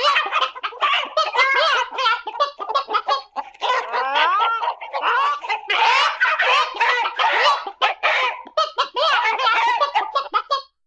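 Animal chattering sound effect: a fast, unbroken run of squeaky chirps and clucks gliding up and down in pitch, cutting off suddenly just before the end.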